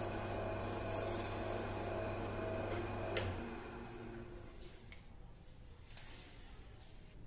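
Wood lathe motor running steadily, with a cloth rubbing on the spinning wooden bowl. About three seconds in there is a sharp click and the motor hum stops as the lathe is switched off, followed by a few faint knocks.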